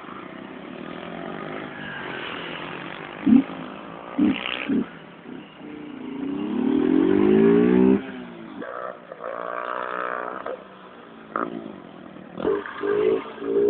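Motorcycle engines revving up and down as they are ridden, the loudest rev rising for a couple of seconds near the middle. A few sharp knocks come about three to five seconds in.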